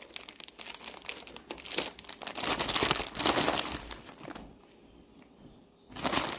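Plastic food packaging crinkling as it is handled and opened for about four seconds, then another short crinkle near the end.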